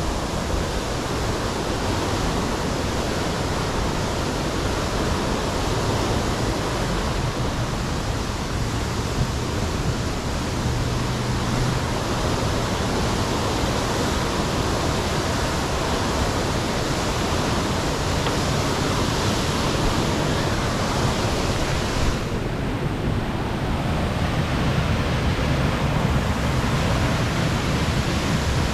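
Steady rushing of water from a creek and waterfalls in a rocky gorge, a continuous even noise; the higher hiss thins for a few seconds late on.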